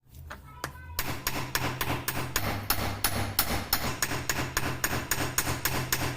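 Hand hammer striking a steel chisel on an anvil while forging it, a few light taps and then rapid, regular blows several times a second from about a second in, over a steady low hum.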